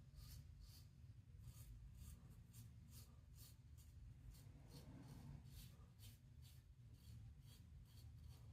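Faint, short scraping strokes of a Schick Platinum double-edge safety razor with a Personna blade cutting about two days' stubble through lather, roughly two strokes a second.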